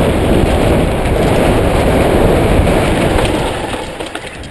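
Wind buffeting the microphone of a bike-mounted or helmet camera, mixed with the rumble and rattle of mountain-bike tyres rolling fast over a dirt trail. The noise eases off about three and a half seconds in.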